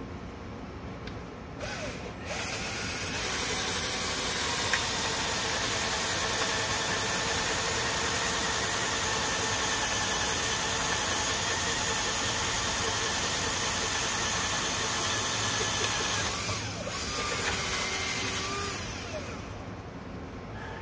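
Power drill boring into a 6x6 spruce fence post with a long bit. It starts briefly about two seconds in, then runs steadily for about thirteen seconds, then makes a second, shorter run that dies away near the end.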